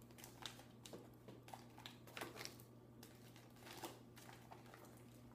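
Near silence with faint handling noises: scattered light taps and rustles as small items are packed back into a case, over a low steady hum.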